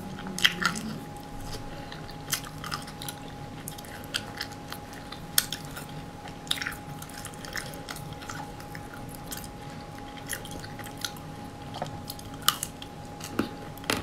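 Close-miked chewing of coated ice cream bars, the crisp coating crackling in short, irregular crunches, the loudest about half a second in.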